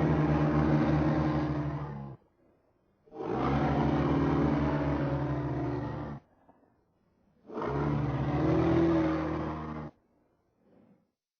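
Slowed-down forest animal chattering sound effect: three long, low, pulsing chatter bursts of two to three seconds each, with short gaps between them and a faint short one near the end.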